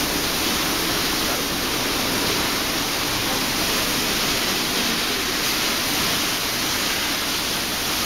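Automatic car wash spraying water over a car: a steady, even hiss of spray with no breaks.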